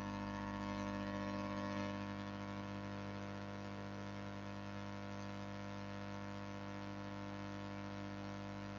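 Steady electrical hum with a faint buzz.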